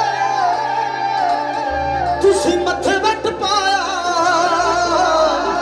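Live song through a large DJ sound system: a singer's wavering, ornamented melody over music with deep, sustained bass notes that shift pitch every second or two.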